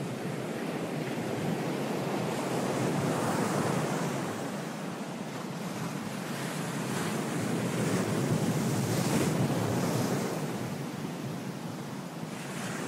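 Surf-like rushing noise washing in and out in two slow swells, with no steady engine note under it.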